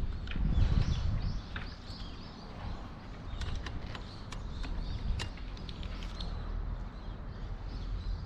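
Scattered light clicks and taps of a 12 mm wrench working the chain adjuster nut on a Honda Ape 100, over a steady low outdoor rumble.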